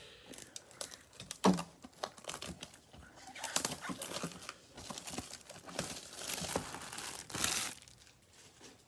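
Cellophane wrapping crinkling and tearing as a sealed cello box of trading cards is opened by hand, with irregular crackles and sharp clicks and a denser rustle about 7.5 seconds in.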